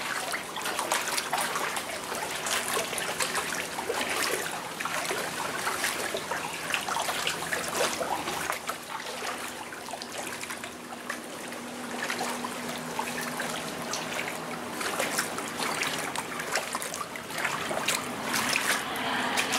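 Feet wading through shallow floodwater, the water sloshing and splashing unevenly with each step.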